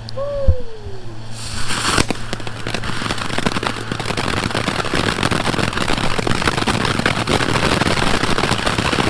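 Ground fountain firework spraying sparks, with dense continuous crackling that starts about two seconds in. Near the start there is a brief low thump and a short call that falls in pitch.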